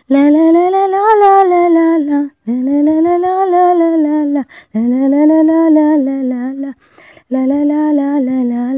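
A woman's voice singing a wordless melody in four phrases of about two seconds each, with short breaks between, and no instruments heard.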